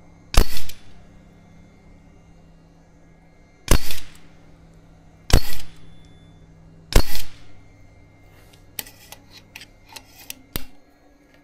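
Four shots from a Karma Airguns SLS .25 caliber pre-charged pneumatic air rifle, each a sharp crack with a brief tail, irregularly spaced, the last about seven seconds in. A run of light mechanical clicks follows as the rifle is handled.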